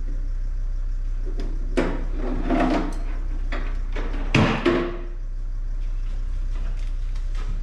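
A vehicle engine running with a steady low rumble, with a few knocks and clatters over it, the loudest about four and a half seconds in.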